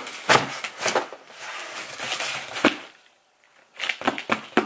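Knocks and scraping from a cardboard shoebox being handled. Near the end comes a quick run of taps as fingertips drum on the box lid.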